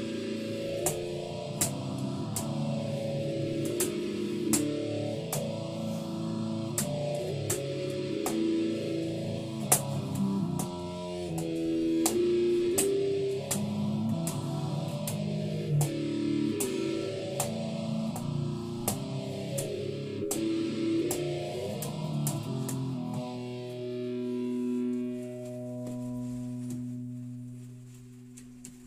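Electric guitar played through an amp, with its tone sweeping up and down about every two seconds. About 23 seconds in, a final chord is left ringing and fades away.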